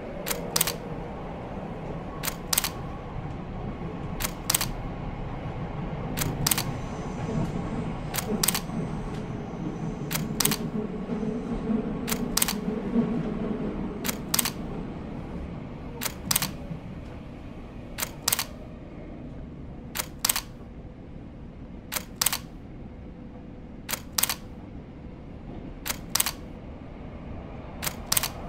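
A sharp double click repeats about every two seconds over the low rumble of a subway station. The rumble of a light-rail train swells around the middle and then eases off.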